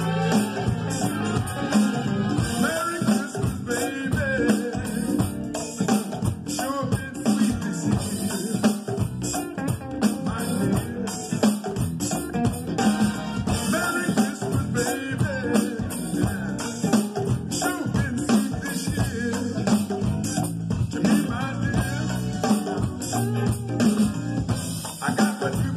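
A song with singing and a drum beat, with an electronic drum kit played along to it; sharp stick hits run throughout.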